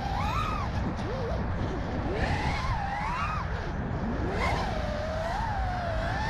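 Brushless motors and propellers of a 5-inch FPV freestyle quadcopter (Impulse RC Apex, Hyperlite 2207 motors) whining. The pitch swoops up and down as the throttle is punched and chopped through flips and rolls, over a steady low rumble.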